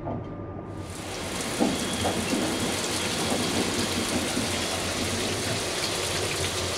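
Train shower head switched on about a second in, then spraying water steadily in a small stainless-steel shower room.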